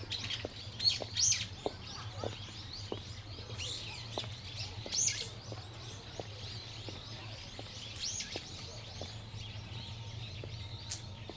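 Wild birds calling: sharp, high chirps in short runs, loudest near the start and again about five and eight seconds in, with fainter calls between, over a faint steady low hum.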